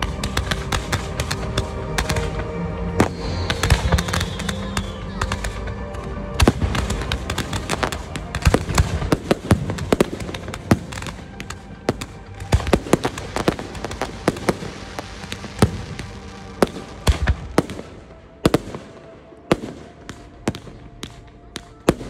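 Fireworks display: a dense, rapid run of bangs and pops from many fireworks launching and bursting, thinning out and getting quieter near the end.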